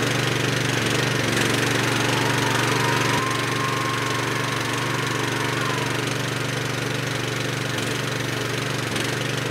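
Petrol-engine pressure washer running steadily, its engine droning under the hiss of the water jet spraying mud off a wheelchair.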